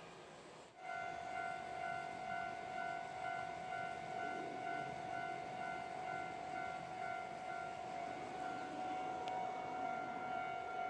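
Railway level-crossing warning alarm ringing over and over, a steady ringing tone with an even repeating pulse, starting just under a second in.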